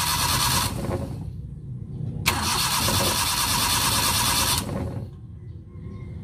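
Suzuki F6A three-cylinder engine being cranked by its starter motor in two tries: one ends under a second in, then after a short pause a second crank starts with a click and runs about two seconds. The engine turns over but never fires, a no-start condition.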